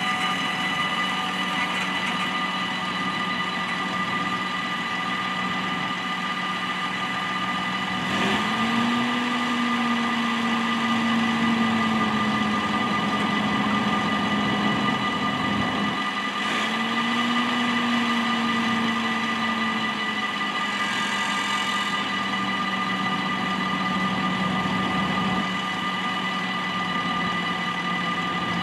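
Dutch level-crossing warning bells ringing steadily, signalling that a train is due. About eight seconds in and again about sixteen seconds in, a low engine-like hum comes in suddenly, holds for a few seconds and fades.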